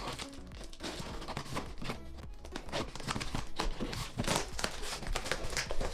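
Cardboard box and its plastic wrapping being opened and handled by hand: a quick, irregular run of crinkly rustles and scrapes.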